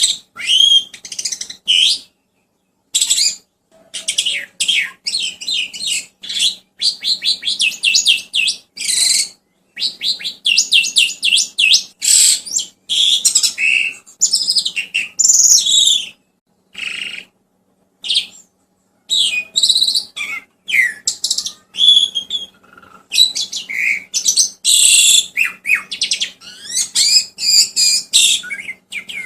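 Songbird song: fast strings of high chirps, whistles and chattering trills in phrases, broken by short gaps of dead silence.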